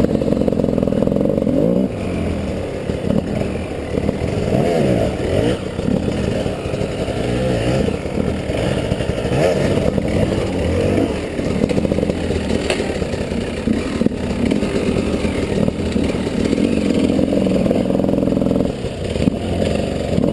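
Two-stroke 300cc enduro dirt bike being ridden off-road, its engine revving up and down over and over as the throttle is worked.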